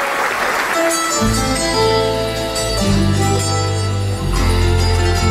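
Audience applause that gives way about a second in to a live Bolivian folk band starting the intro of a tonada: plucked strings over a strong deep bass.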